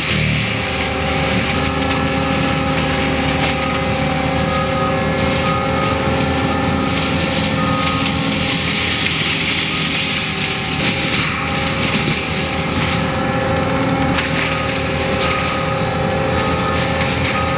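Forestry mulcher head on an ASV 135 compact track loader working under load, its toothed drum grinding through wood with constant crunching and splintering. The engine and hydraulics give a steady whine underneath.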